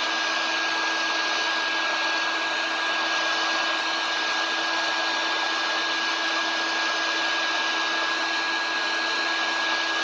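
Heat gun running steadily, blowing hot air onto a wooden board: an even rush of air with a steady high whine and a lower hum.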